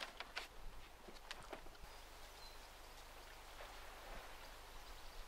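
Faint, quiet river ambience aboard a small sailing yacht under sail, with no engine. A few soft clicks and knocks come in the first couple of seconds, followed by a faint even hiss and a couple of brief high chirps.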